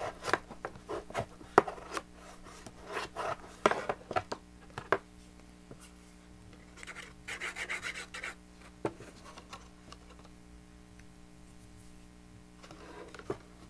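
Stiff cardstock being folded along its score lines and handled: a run of short taps and crackles, then a couple of seconds of paper rubbing about seven seconds in as a fold is pressed flat, and a few more light taps near the end.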